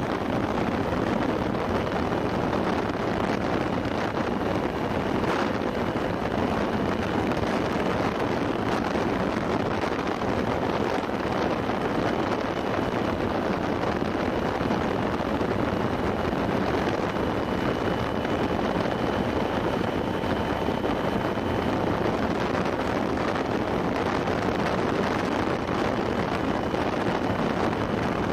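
Motorcycle riding at about 45–50 mph: a steady rush of wind over the camera's microphone, with engine and road noise underneath.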